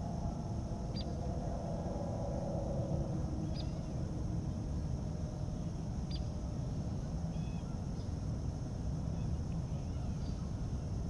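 Early-morning lake ambience: short bird chirps about every two and a half seconds, with a few other small calls later on, over a steady low rumble and a steady high hiss.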